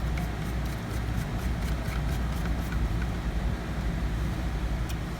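A steady low rumble, with faint scattered small clicks and ticks from a screwdriver driving small screws into a laptop hard drive.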